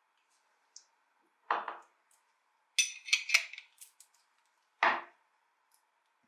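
Handling sounds of an old adjustable wrench with a metal head and wooden handle being worked with hand tools on a wooden table. There are two dull knocks, about one and a half and five seconds in, and a quick run of light metallic clicks and rattles around three seconds.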